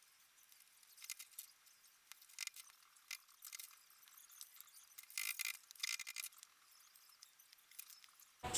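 Faint, scattered metallic clinks and taps of small metal parts and tools being handled, a few short bursts a second or so apart, during replacement of a washing machine motor's bushing.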